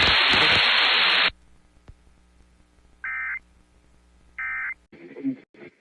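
A hissy broadcast voice cuts off about a second in, then two short electronic bursts, each under half a second and about a second and a half apart: EAS end-of-message data bursts closing the alert.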